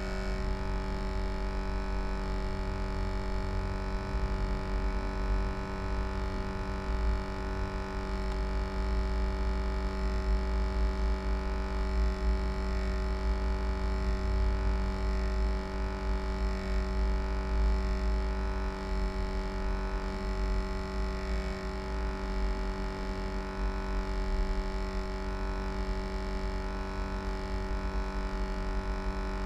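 HP Envy m6 laptop cooling fan running with a strange, steady pitched hum with many overtones over a low rumble, the abnormal fan noise whose cause the owner does not know.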